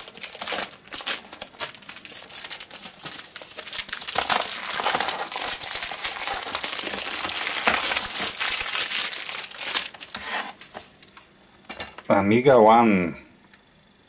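Cellophane shrink-wrap crinkling and crackling as it is peeled off a plastic DVD case by hand, for about ten seconds. Then a brief wavering hum comes after a short pause, near the end.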